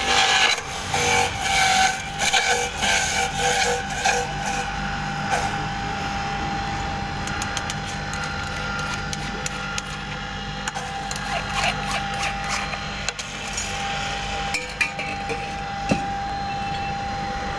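Electric juice extractor grinding carrots: a harsh, rasping grating in rough bursts for the first few seconds as carrots are pushed in. After that the motor runs steadily with an even whine, and scattered sharp clicks come from a steel spoon stirring pulp in a steel strainer.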